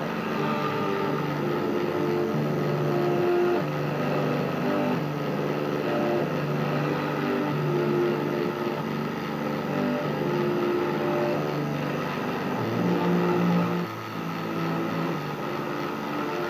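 Music playing through a loudspeaker driven by an amplifier built around a homemade pure-tungsten-filament triode vacuum tube: held notes that step from one pitch to the next every second or so, over a rough, noisy background.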